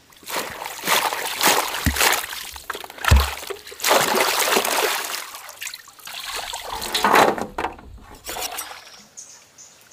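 Water sloshing and splashing in a basin as hands wash drumstick pods, in irregular rushes, with two dull thumps about two and three seconds in.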